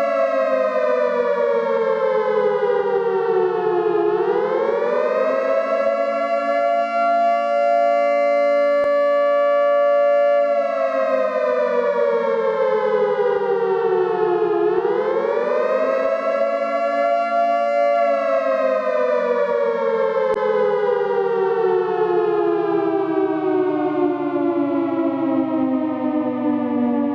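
Civil defense warning siren wailing on a two-note chord. The pitch slides down, swoops back up and holds for a few seconds, twice over, then slides slowly down again.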